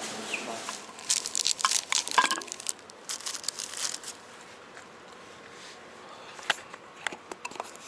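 Takeaway wrapping crinkling and rustling as it is handled, in dense bursts from about one to four seconds in, then a few sharp clicks near the end.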